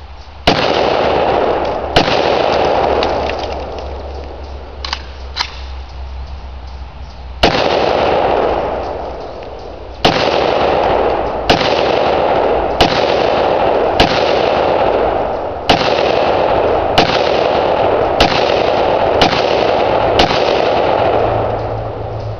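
AK-pattern rifle firing .223 Remington rounds: about a dozen single shots at an uneven, unhurried pace, with a pause of several seconds after the second. Each shot is a sharp crack followed by a long rolling echo.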